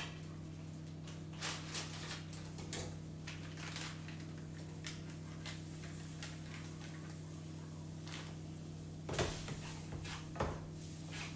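Wooden spoon knocking and scraping in a saucepan as food is stirred: scattered short knocks, loudest and most frequent about nine to ten seconds in, over a steady low hum.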